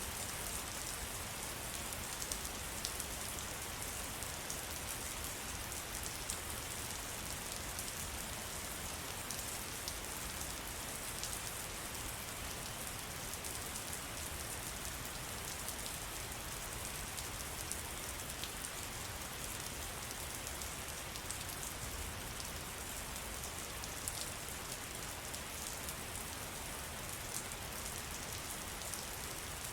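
Steady rain falling in a forest, an even hiss of rainfall with many individual drops ticking on leaves and surfaces.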